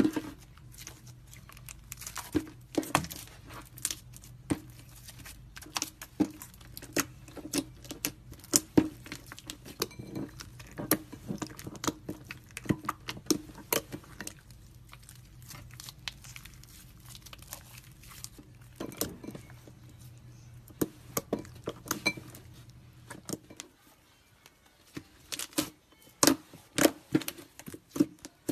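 Slime being kneaded, squeezed and pressed by hand, giving irregular sharp, sticky clicks and pops.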